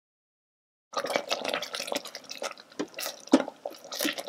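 Tomato gravy bubbling and popping as it simmers on low sauté in an Instant Pot inner pot, with irregular small pops and splutters. The sound starts about a second in, after total silence.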